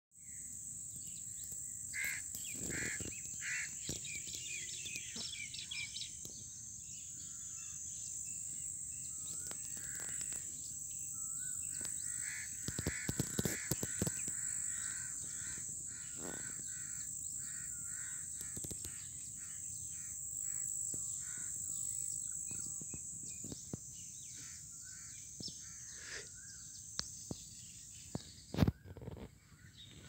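Birds calling, with crow-like caws among them, over a steady high-pitched insect drone. A few sharp knocks sound about halfway and, loudest, near the end.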